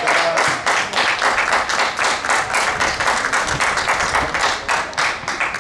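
Spectators at a youth soccer match clapping: several people's quick, uneven hand claps that thin out at the very end.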